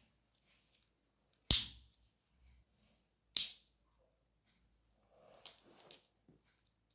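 Two sharp plastic snaps about two seconds apart, then a soft rustle: an old mobile phone being handled while its card is swapped, its back cover or battery clicking into place.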